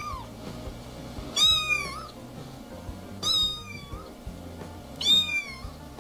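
Orange-and-white cat meowing three times, short high meows about two seconds apart, each bending up and then down in pitch.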